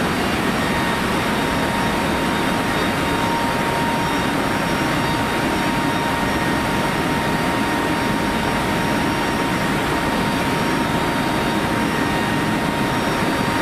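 Steady drone of a Lockheed C-130 Hercules's four turboprop engines mixed with wind rushing past the open rear ramp, heard inside the cargo hold, with a thin steady whine running through it.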